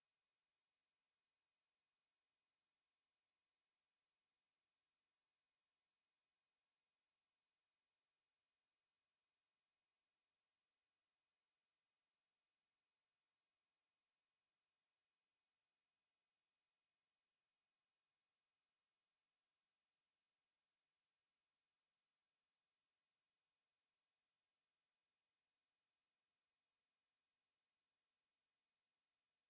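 A pure 6088 Hz sine-wave test tone: one steady high-pitched whistle-like tone held at constant pitch and level, used for testing speakers and headphones.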